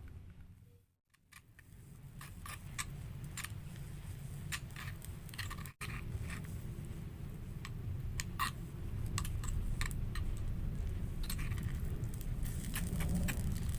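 Scattered light clicks and scrapes of small objects being handled, over a low steady rumble. The sound cuts out briefly about a second in and again near six seconds.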